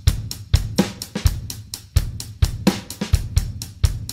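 Drum kit playing a steady beat: deep bass-drum thumps under sharp snare and cymbal hits.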